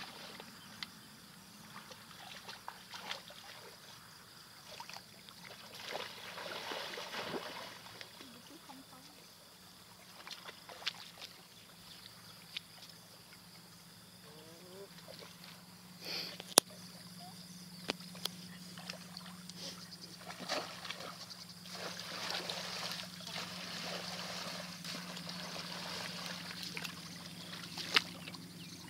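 Shallow muddy water sloshing, splashing and trickling as people wade through it and grope in it by hand, in uneven bursts. A few sharp clicks stand out, the loudest about halfway and again near the end, and a faint steady low hum comes in about halfway.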